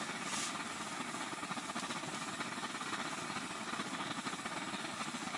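Blowtorch burning steadily, an even rushing hiss with a fine rapid flutter, heard inside an ice-fishing tent; it cuts off suddenly at the very end.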